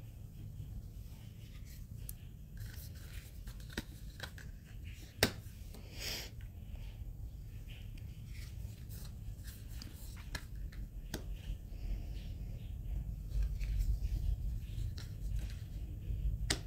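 Oracle cards being laid one by one onto a pile on a cloth: scattered soft clicks and paper slides, with one sharp snap about five seconds in followed by a brief swish. A low rumble runs underneath and grows stronger near the end.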